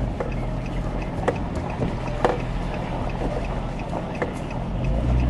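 Vehicle rumble, steady and low, with scattered sharp clicks and knocks.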